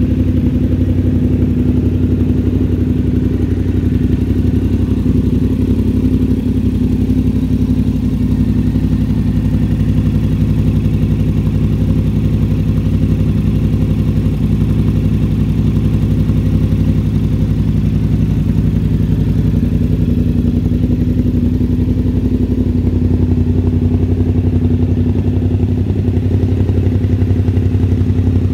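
2021 Yamaha Tenere 700's 689 cc parallel-twin engine idling steadily.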